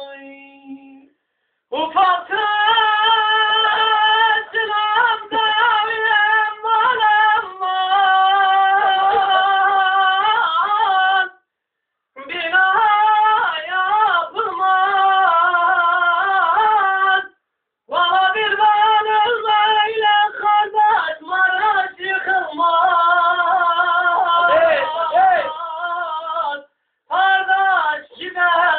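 A solo voice singing a folk melody in long, ornamented phrases whose pitch bends and wavers, broken by short pauses for breath about every five to ten seconds.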